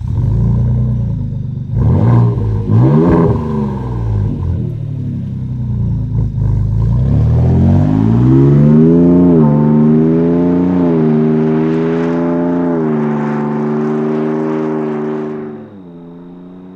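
Ford Raptor's twin-turbo 3.5-litre EcoBoost V6 through an MBRP 3-inch stainless cat-back exhaust with a high-flow muffler. It rumbles at idle and is revved quickly twice, then the truck pulls away with the engine note climbing and dipping briefly at each upshift. The sound drops sharply to a much quieter engine near the end.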